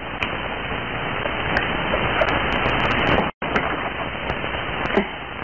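Steady hiss of an old recorded soundtrack, with a few faint clicks. The sound cuts out completely for a split second a little past three seconds in.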